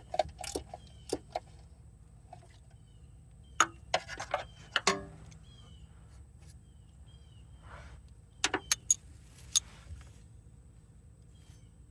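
Metal hand tools clinking and tapping, sockets and wrenches knocking against each other and the car's metal parts, in scattered clusters; one sharper knock about five seconds in rings briefly.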